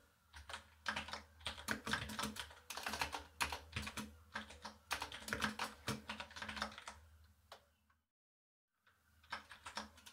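Typing on a computer keyboard: quick, irregular keystrokes that stop for about a second, then a few more keystrokes near the end.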